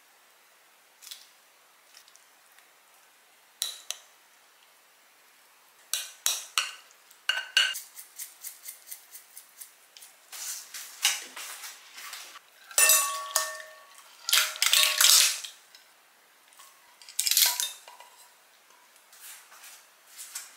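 Chopsticks clicking and scraping against a ceramic plate as salad is arranged on it, a few sparse taps at first, then busier clatter. In the second half, ceramic dishes clink with brief ringing tones.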